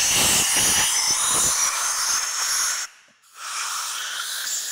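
Compressed-air blow gun hissing in two blasts, a long one of about three seconds, then a short pause and a shorter blast, blowing air under a rubber handlebar grip to slide it onto the clip-on bar.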